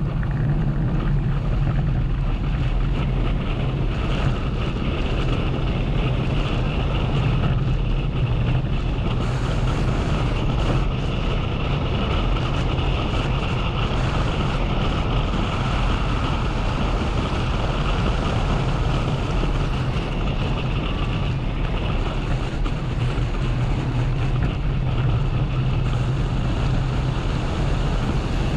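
Motorcycle engine running steadily at road speed, with wind rushing over the camera microphone.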